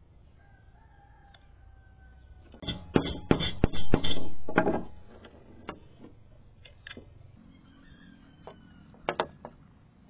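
A rooster crowing once, loudly, starting a little under three seconds in and lasting about two seconds, with a few light clicks and taps before and after.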